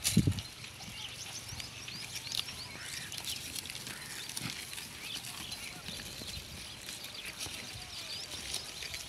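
Goats grazing close by, tearing and chewing grass in many quick, crisp crunches. There is a single low thump just after the start.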